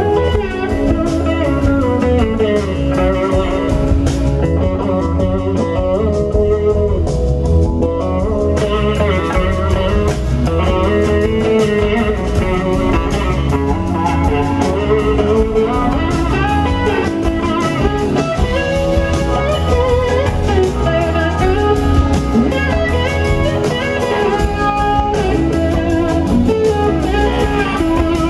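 Live blues-rock band playing, led by an electric slide guitar on a Gibson SG whose melody glides between notes, over bass, drums and keyboards.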